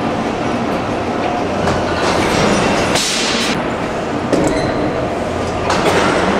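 Replica Boulton & Watt rotative beam engine in motion: a steady mechanical rumble and clatter from its gearing and linkages, swelling in regular surges a little more than once a second.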